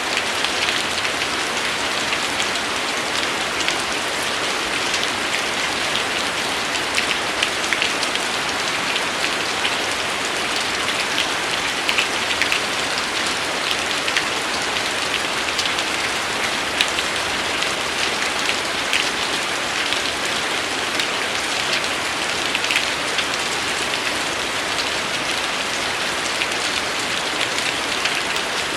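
Steady rain falling: an even hiss with many individual drops ticking on a surface.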